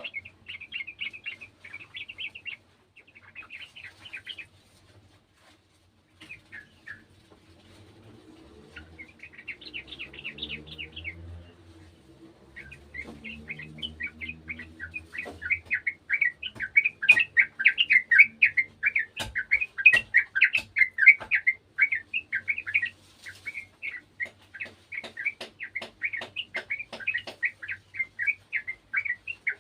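Yellow-vented bulbul (trucukan) singing: short bursts of quick chirping notes, then from about halfway a long, dense run of rapid chattering song. Sharp clicks sound now and then through the second half, and a low wavering hum is heard in the middle.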